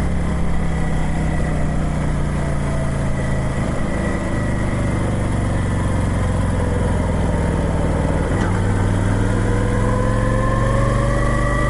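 Motorcycle engine running under way, its pitch sinking slowly as it slows, then, after a short click about eight seconds in, rising again as it speeds up.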